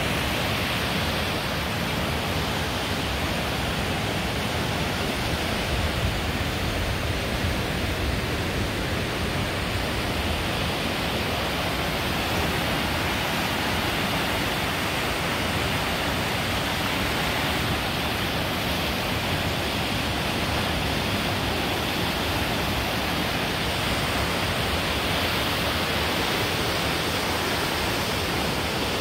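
A river in spate rushing through rocky rapids: a steady, dense rush of churning white water.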